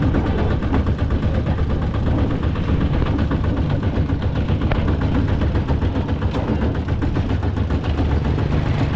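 Diesel engine of a rice combine harvester running steadily under load, with a fast, even chatter of firing pulses over a deep drone.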